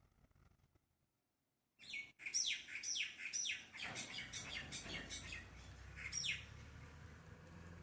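A bird calling: a quick run of sharp chirps, each falling in pitch, starting about two seconds in, then one more chirp near the end.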